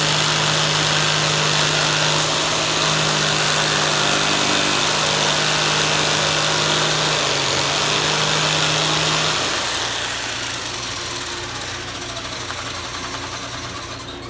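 Power tool cutting a Lexan polycarbonate windshield along a traced line, running steadily with a loud hiss, then stopping about nine and a half seconds in, its noise fading away after.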